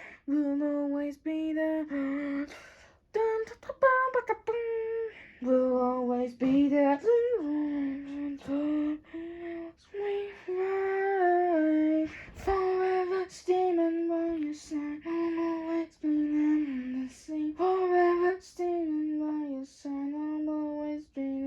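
A female voice singing a slow melody in short phrases of held notes.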